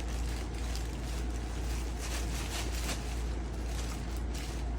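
Clothing and plastic packaging rustling as they are handled, over a steady low rumble.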